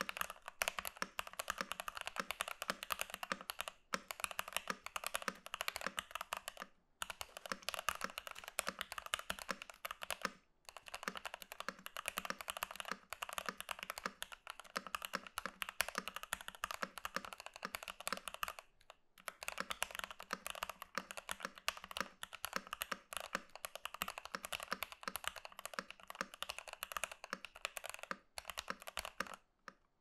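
Typing on a stock Keychron V1 mechanical keyboard with pre-lubed Gateron Phantom Red linear switches, Keychron Cherry-profile PBT doubleshot keycaps and stock stabilizers: fast continuous keystrokes with a muted sound, broken by a few brief pauses.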